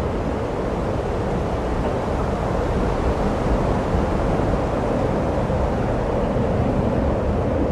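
Strong wind blowing on the microphone: a steady low rush with no breaks.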